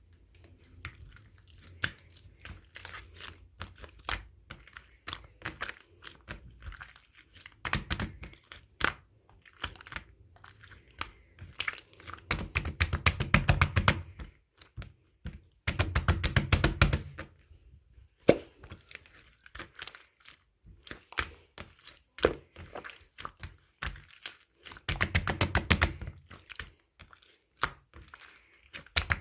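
Clear slime being squeezed and stretched by hand, giving dense runs of sticky clicks and pops. Louder bursts of a second or two come several times, with softer crackling between.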